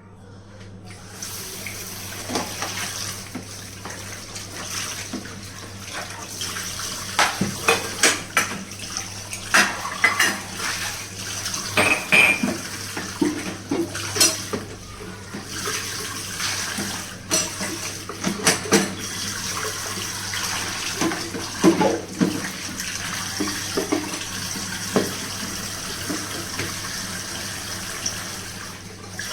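Kitchen tap running into a sink while dishes and pots are washed, with repeated clinks and clatters of the vessels knocking together. The water starts about a second in.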